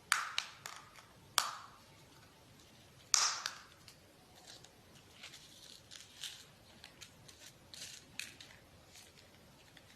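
Packaging of a packet of fishing hooks being handled and opened: a few sharp crackles in the first second and a half, a louder tearing crinkle about three seconds in, then lighter crinkling.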